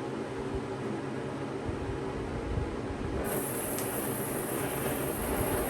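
Electric fan running steadily with a low hum. About three seconds in, a high hiss joins it and carries on.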